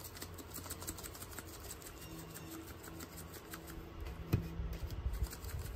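Seasoning shaker bottle shaken over raw steaks on a metal sheet pan: faint light rattling and ticking of the spice, with a single sharp knock a little after four seconds.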